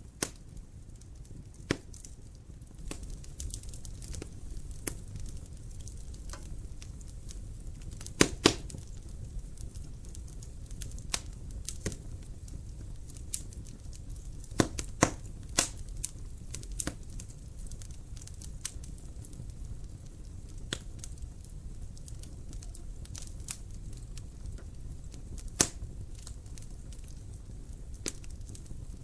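Wood fire in a fireplace crackling, with sharp irregular pops over a low steady rumble of the flames; a few louder pops stand out, a pair about eight seconds in, a cluster around fifteen seconds, and one near twenty-six seconds.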